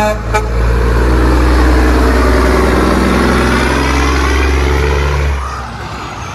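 Heavy road-vehicle engine running loud and steady with a deep hum, easing off about five seconds in.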